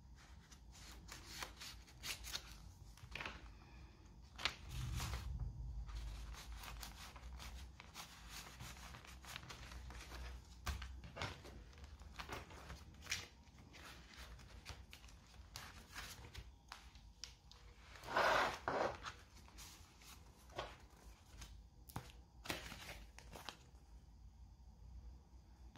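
Paper handled: stiff journal pages, flaps and tags rustling and flapping, with scattered soft taps and clicks and one louder rustle about 18 seconds in.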